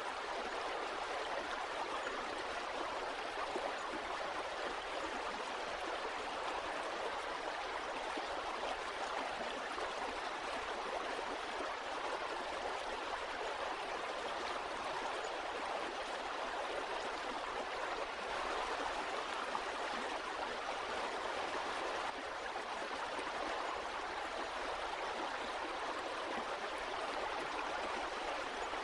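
Flowing stream water running steadily over rocks, an even rushing and babbling.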